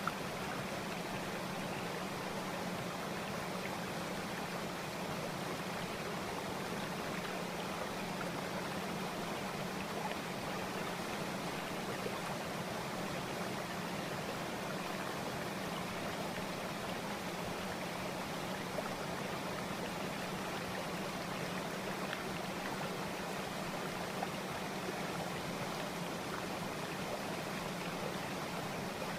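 Steady rushing noise like a flowing stream, even and unchanging, with a low steady hum underneath.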